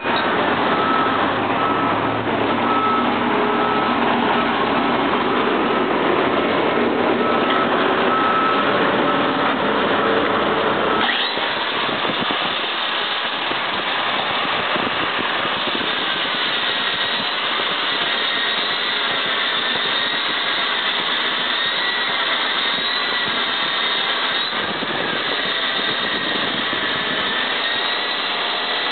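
Weka DK32 electric core drill running, its diamond core bit cutting into concrete: a steady motor whine and grinding. About eleven seconds in, the low rumble drops away and the whine wavers in pitch under load.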